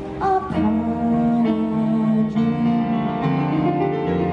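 Live music from a solo performer in a garden gazebo: steady held notes and chords.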